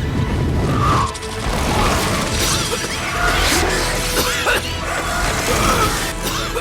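Dense film soundtrack: music under crashing, shattering and metallic mechanical sound effects, with many short sweeping tones.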